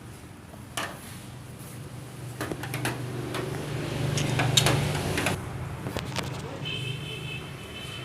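Street traffic with an engine hum that swells and fades about halfway through as a vehicle passes, mixed with scattered clicks and clinks of tableware. A short high beep sounds near the end.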